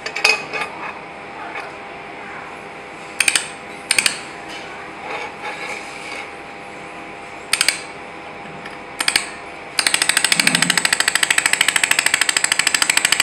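Handheld fiber laser welder firing on 4 mm stainless steel sheet: a few single sharp snaps, then, about ten seconds in, a rapid, even train of pulses as it spot-welds along the seam.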